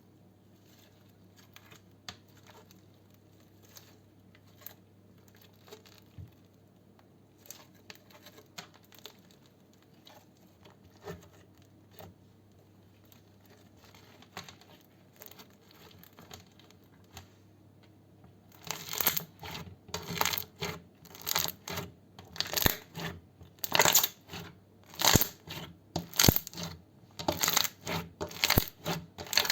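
Slime being squeezed and pressed by hand, making crackling, popping squishes. It starts with sparse faint pops, then about two-thirds of the way in turns into a fast run of loud crackling squishes, about two a second.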